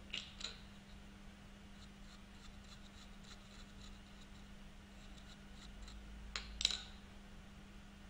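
Light metallic clicks and scrapes of a small machined aluminium part being handled against the steel milling machine table and vise: two sharp clicks at the start, a string of faint ticks in the middle, and the loudest pair of clicks near the end, over a steady low hum.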